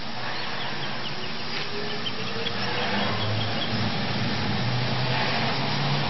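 Chairlift drive machinery running with a steady hum that grows slowly louder, and a faint tone rising in pitch about two seconds in.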